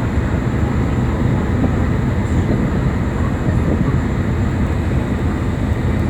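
Passenger ferry's engine running with a steady low drone, unchanging throughout.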